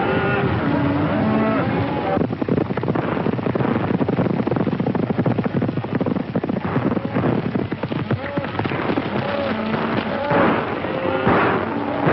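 Film soundtrack of a gunfight: many rapid gunshots crackling densely from about two seconds in, with loud calls over them at the start and again near the end.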